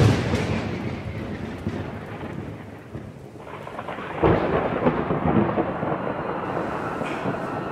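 Thunder over steady rain: a roll of thunder fades over the first three seconds, then a second roll comes in sharply about four seconds in and carries on.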